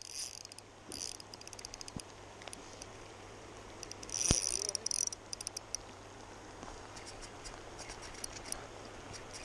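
KastKing Zephyr 1000 spinning reel's drag ticking in rapid bursts as a hooked chinook salmon takes line: a short burst at the start, a louder one about four seconds in, then scattered lighter ticks.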